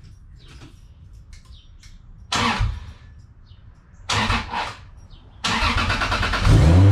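Car engine cranked by its starter in two short tries, then a third, longer crank on which it catches near the end, the pitch rising as it fires up into running. This is the engine's first start after a water pump replacement.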